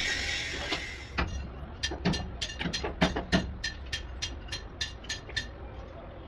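Hand-tool work during a car repair: a hissing noise that fades out in the first second, then a run of sharp, evenly spaced clicks, about three a second, that stops near the end.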